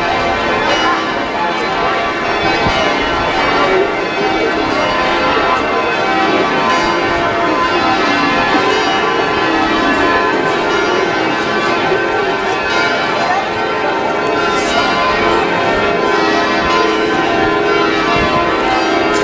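A ring of church bells rung full-circle in changes, the bells striking one after another in a continuous, dense stream of overlapping peals.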